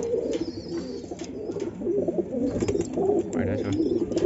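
Domestic pigeons cooing steadily inside their loft, with a few light metal clicks as a steel padlock is hung on the hasp of the loft's perforated metal door.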